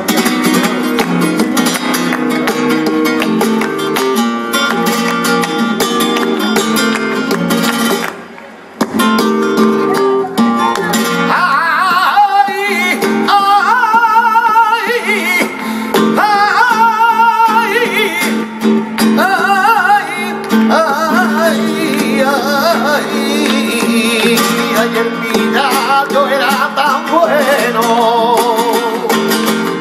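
Flamenco tangos: a Spanish acoustic guitar strumming in rhythm with hand-clapping (palmas). It breaks off briefly about eight seconds in. From about eleven seconds a male flamenco singer comes in, singing long, wavering, ornamented lines over the guitar.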